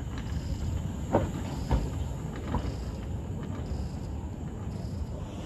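Kerr Stuart narrow-gauge steam tank locomotive moving slowly along the track: a steady low rumble broken by a few sharp clanks about a second apart, with a faint hiss of steam.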